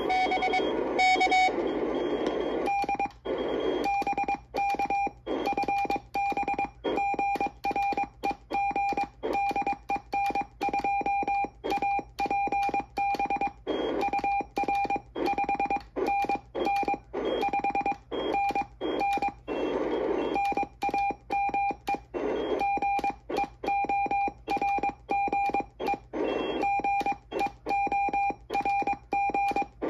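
Morse code keyed on a paddle and heard as the Old Friend QRP CW transceiver's sidetone through a small external speaker: a steady mid-pitched beep switched on and off in dots and dashes. Receiver hiss fills the longer gaps between characters and words.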